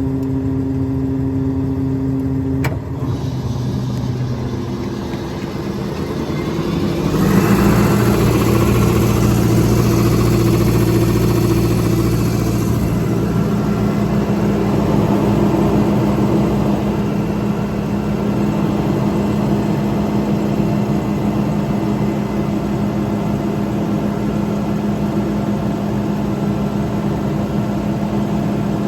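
Diesel engine running steadily; a click about three seconds in, then the engine speeds up about seven seconds in and runs higher, with a hiss for several seconds.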